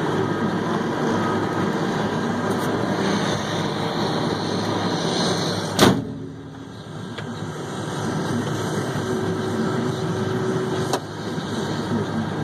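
Haul truck's diesel engine running steadily, heard from inside the cab. About six seconds in there is a sharp knock, after which the engine noise briefly drops and comes back, and there is a smaller click near the end.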